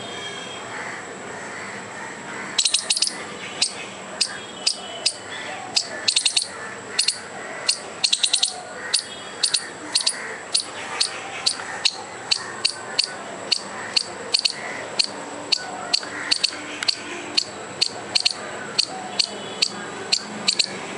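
A squirrel giving a long run of sharp, high alarm chirps, starting about two and a half seconds in and repeating about two to three times a second, some in quick pairs. This is alarm calling at a dog the squirrel sees as a threat.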